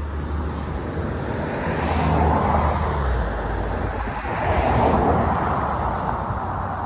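Road traffic: two vehicles passing in turn, each a rising and falling swell of tyre and engine noise, over a low rumble of wind on the microphone.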